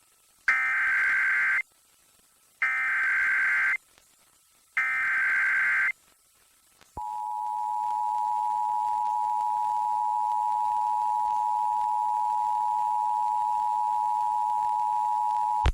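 Emergency Alert System SAME header: three identical bursts of warbling data tones, each about a second long with a second's gap between them. About 7 seconds in comes the EAS two-tone attention signal, a steady two-note tone held for about nine seconds before cutting off. Together they announce an incoming emergency alert, here an Amber Alert.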